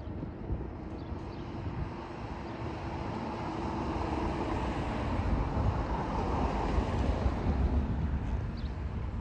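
Distant twin-engine jet airliner on its takeoff roll at full thrust: a steady engine roar that swells from about three seconds in.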